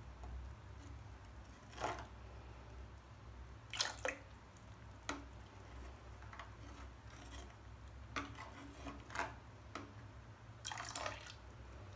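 Steel spoon stirring hot milk in an aluminium pot, with a few faint, scattered clinks and splashes as diluted vinegar is poured in little by little to curdle the milk into chhena.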